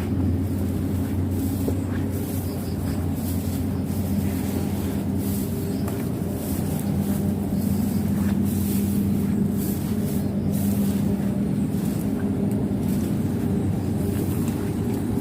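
An engine running steadily with a low hum that shifts slightly in pitch and strength.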